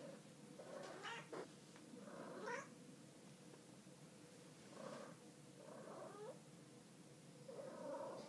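A tabby cat talking: a series of about five quiet, short meows spaced a second or two apart, some rising in pitch at the end.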